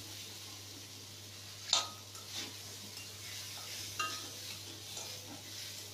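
Flat metal spatula stirring vegetables in a metal kadai, scraping and striking the pan in several sharp clinks, the loudest just under two seconds in, over a low steady sizzle of frying.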